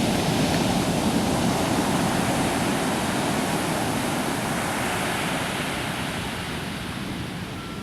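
Pacific Ocean surf: a steady rush of breaking waves washing up the beach, slowly easing off toward the end.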